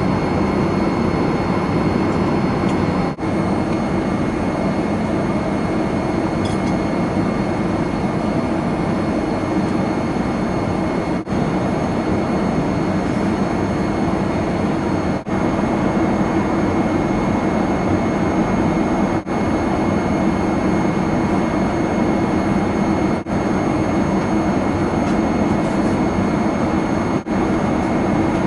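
Boeing 787-8 passenger cabin at cruise: a steady rush of air and engine hum. It drops out for a split second about every four seconds.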